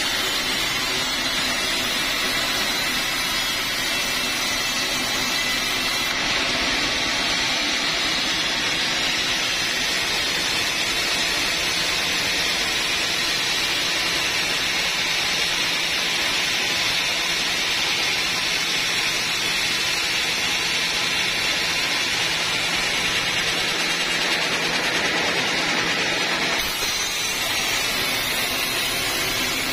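Large sawmill band saw running and sawing through an old teak log: a loud, steady, even hiss with a faint low hum underneath. The noise shifts slightly about six seconds in and again near the end.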